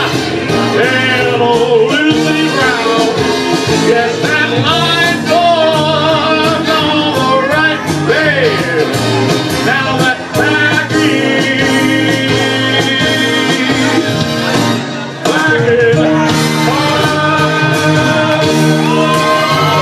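Loud karaoke backing music with a man singing over it into a microphone.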